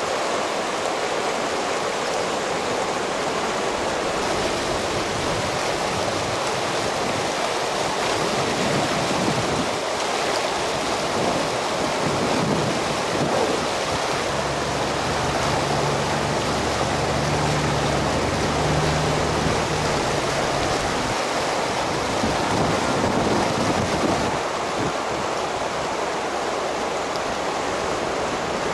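A river in flood: fast, muddy water rushing and churning over rocks and debris in a steady, unbroken roar of white noise.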